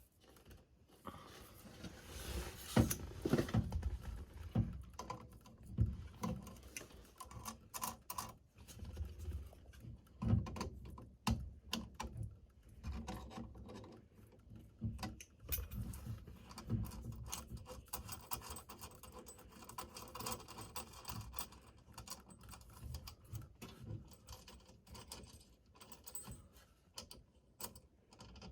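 Hand work on a car radio: scattered small metal clicks, taps and rattles with a few soft knocks as nuts are taken off the radio's shafts and it is fitted into the dash.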